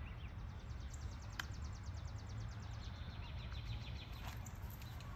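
Birds calling outdoors: a rapid high rattling trill for about two seconds, then a lower fast trill, over a steady low rumble, with one sharp click about a second and a half in.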